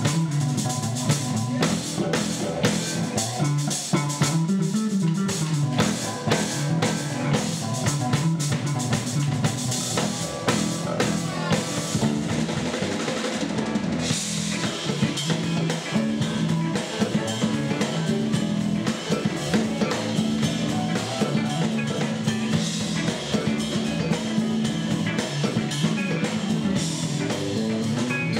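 Live band playing: an electric bass guitar carrying a prominent moving bass line over a drum kit with cymbals.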